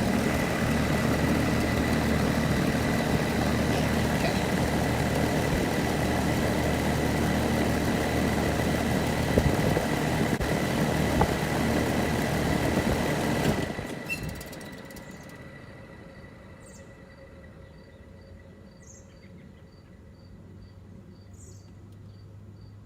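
Rheem central air conditioner outdoor unit, with a Copeland scroll compressor, running steadily with a hum, then shutting down about 14 seconds in: the noise cuts off sharply and the condenser fan winds down. Crickets chirping at a steady pace can be heard afterwards.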